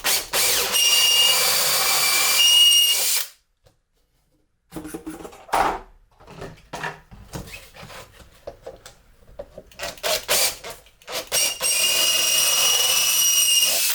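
Power drill running in two bursts of about three seconds each, a steady high whine, with a bit boring through holes in a 3D-printed plastic part to clear them. Scattered knocks and clicks of handling come between the bursts.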